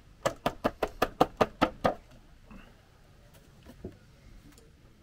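A clear plastic salad tray knocked repeatedly to shake the salad out onto a plate. About ten quick knocks come in under two seconds, then one softer knock near the end.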